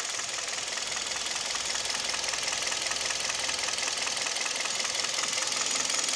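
Hyundai/Kia G4KD 2.0-litre Theta II four-cylinder engine running with a steady, rapid knocking: the piston knock that the owner complains of.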